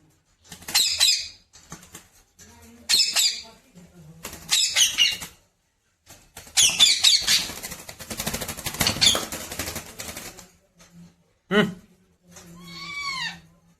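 Pet parrot calling in a series of short, harsh, high-pitched squawks, with a longer noisy stretch in the middle and one clearer whistled note near the end.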